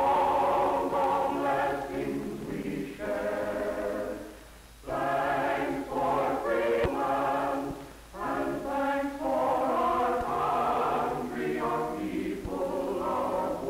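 A choir singing in sustained phrases, with two short breaks between phrases.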